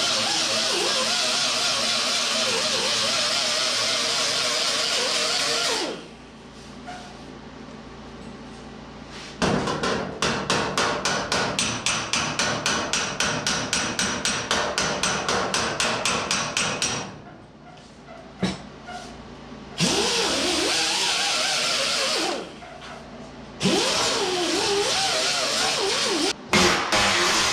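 Small handheld disc grinder grinding down fresh welds on steel body panel, its pitch wavering as it bites. It stops about six seconds in and comes back twice near the end. In between comes a quick, even run of metal strokes, about five or six a second, for some seven seconds.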